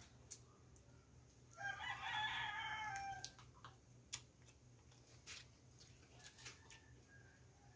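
A rooster crows once, a call of about a second and a half starting a little before two seconds in. A few faint clicks come before and after it.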